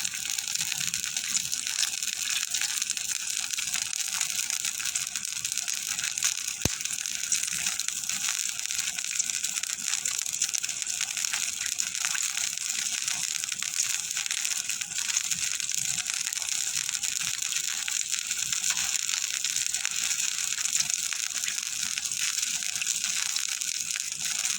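Jaggery syrup sizzling and bubbling in a pan over a low flame with a steady crackle as it cooks down and thickens. There is one sharp click about seven seconds in.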